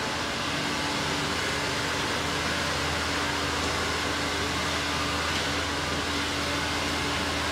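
Steady mechanical hum and whooshing noise with a low drone, joined about half a second in by a faint steady tone.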